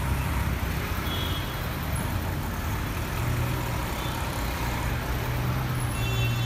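Ferrari 812 Superfast's V12 engine running at low revs as the car pulls away and cruises slowly, a steady deep rumble, over street traffic noise.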